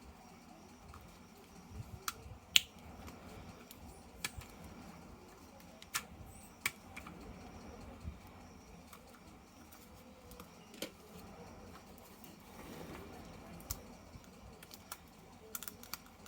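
Faint, irregular small clicks and taps of things being handled, a dozen or so scattered over quiet room tone.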